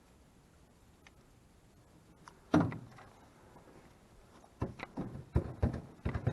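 Knocks and thumps in a john boat: one loud knock about two and a half seconds in, then a quick run of knocks and clatter near the end.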